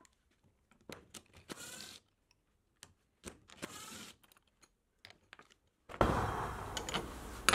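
Cordless drill fitted with a socket, running in short bursts to back out the handle bolts of a hedge trimmer, between small clicks and knocks of metal parts on a workbench. Louder handling noise and clatter come near the end.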